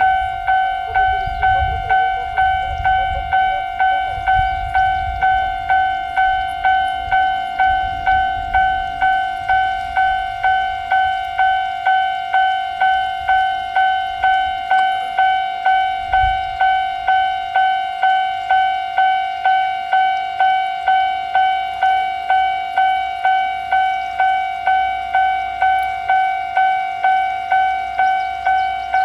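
Japanese railroad crossing warning bell ringing steadily, a single pitched electronic ding repeated about one and a half times a second, signalling that a train is approaching.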